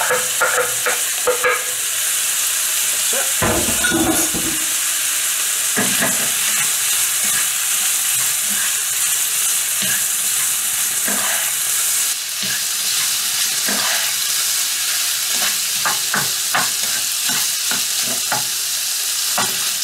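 Diced ham and mixed vegetables sizzling in oil in a wok on medium-to-high heat, with the scrape and tap of a spoon stirring them. A dull knock about three and a half seconds in, and the sizzle softens a little about twelve seconds in.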